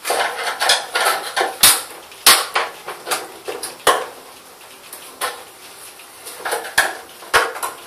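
Screwdriver prying the retaining clips off a car headlamp's lens: a string of sharp clicks and knocks of metal on hard plastic, with about five louder snaps spread through the stretch.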